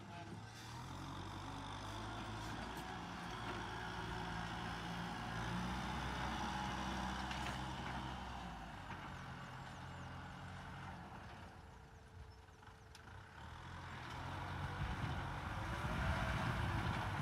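Kubota M6040SU tractor's diesel engine running steadily under load while plowing. The sound fades to its quietest about twelve seconds in, then grows louder toward the end.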